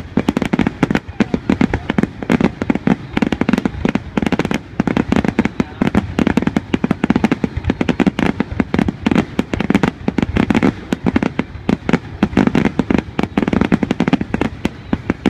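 Aerial fireworks display: a dense, unbroken barrage of shell bursts, bangs and crackling, many a second.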